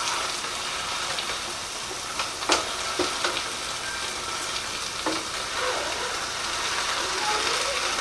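Venison burger patties sizzling in a frying pan: a steady hiss of fat with a few sharp pops and crackles, the clearest about two and a half, three and five seconds in.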